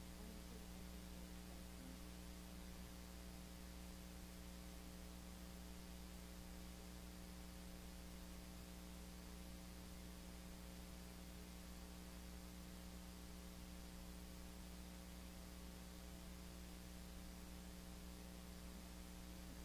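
Steady electrical hum with a faint hiss, otherwise near silence.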